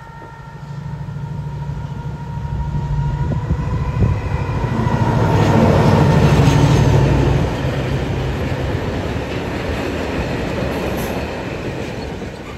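Train approaching and passing close by at speed. A steady whine and a low engine note build as it nears, loudest as the front passes about six seconds in. The coaches then rumble by with a broad rushing noise that slowly fades.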